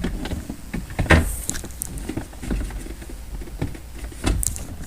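Plastic interior trim being lifted and handled: scattered light clicks and knocks, with a sharper knock about a second in.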